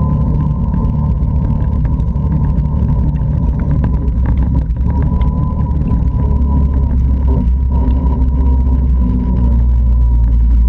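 Can-Am Outlander 650 ATV's Rotax V-twin engine running under way over gravel, a steady deep drone with a steady high whine above it and small ticks of gravel under the tyres. The engine gets louder near the end.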